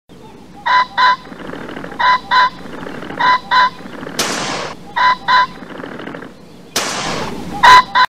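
Pheasant crowing, a loud two-note call repeated five times about every second and a half, the last near the end the loudest. Two sudden shotgun blasts, about two and a half seconds apart, each fading over half a second.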